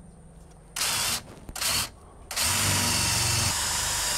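Cordless drill boring a hole up through a thermally modified wood soffit board, overhead. Two short bursts starting about a second in, then a steady run from a little past halfway.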